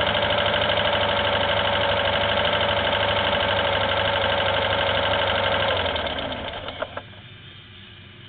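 Kart-cross engine idling steadily, then switched off about six seconds in, dying away within a second with a couple of sharp clicks as it stops.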